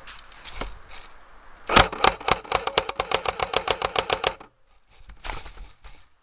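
Airsoft electric gun firing a rapid burst: a sharp first shot, then about twenty evenly spaced shots at roughly seven a second, lasting nearly three seconds and stopping suddenly. Before the burst there is a rustling of movement.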